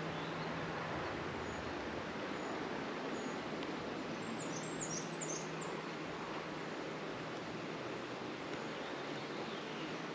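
Steady outdoor background hiss around an open beehive, with a songbird's short burst of quick high chirps about halfway through.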